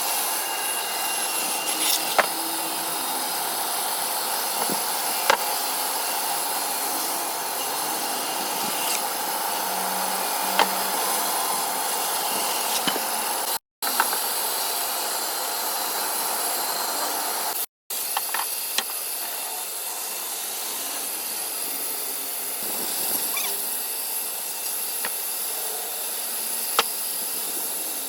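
Power woodworking machine running and cutting wood: a steady hissing noise with occasional sharp clicks. The sound cuts out completely for a moment twice, around the middle.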